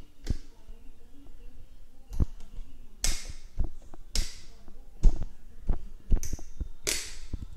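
Handling noise from a fabric LED safety armband being held and worked: irregular taps and knocks, roughly one a second, some with short brushing rustles, the loudest about five seconds in.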